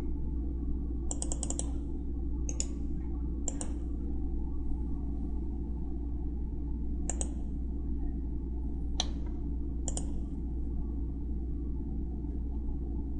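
Computer mouse clicks over a steady low hum: a quick run of clicks about a second in, then single clicks spaced a second or more apart.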